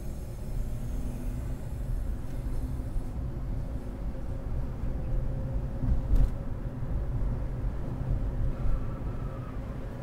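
Low, steady road and engine rumble inside a moving car's cabin, with a single thump about six seconds in.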